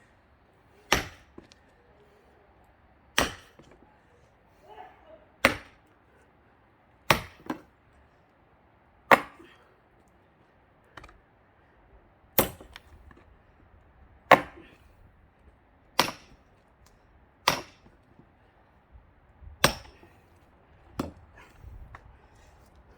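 Repeated axe blows into a thick pine log being split for firewood: about eleven sharp, hard strikes, roughly one every two seconds.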